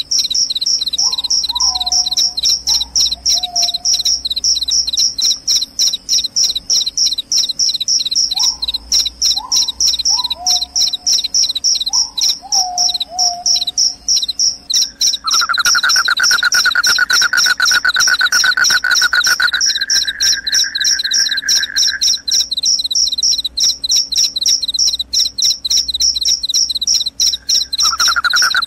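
Crickets chirping in a fast, continuous pulsing trill. A second, lower-pitched steady trill joins about halfway through, stops for a few seconds and comes back near the end. In the first half, a few groups of short falling whistles sound over them.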